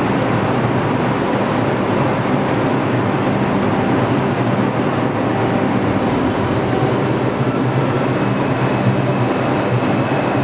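An R142A subway train standing at a station platform with its doors open, its equipment humming steadily. A faint high whine joins about six seconds in.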